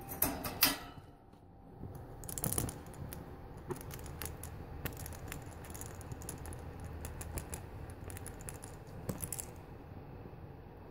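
Light irregular clicking and rattling of paper-pellet cat litter as a kitten moves and digs about in its litter box, with a few sharper clicks in the first second.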